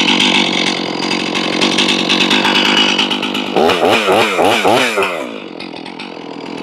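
Stihl MS 461 two-stroke chainsaw running at high revs out of the cut. About three and a half seconds in it is blipped four times in quick succession, the engine note rising and falling each time, then drops back to a lower steady speed near the end.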